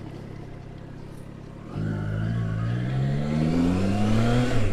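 Triumph Trident 660's three-cylinder engine running at a steady low note, then about two seconds in it gets louder and its pitch climbs steadily as the bike accelerates. Near the end the pitch drops suddenly at a gear change.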